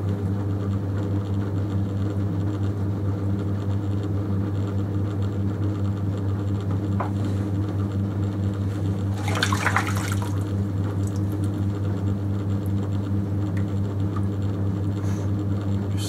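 Electric potter's wheel running with a steady motor hum while wet clay spins under the potter's hands as the neck of a bottle form is collared in. About nine seconds in there is a short, louder wet rush of noise.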